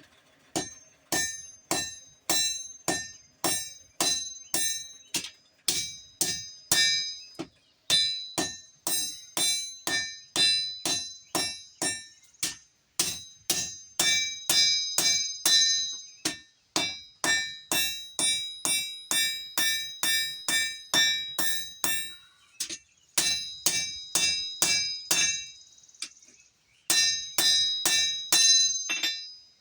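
Hand hammer blows on an anvil forging a blade from old buggy spring steel, about two strikes a second in runs of several seconds with short pauses between them. Each blow leaves a bright metallic ring.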